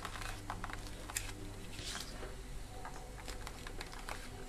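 Faint clicks and rubbing of a small plastic power-adapter housing being handled and turned over in the hands, over a low steady hum.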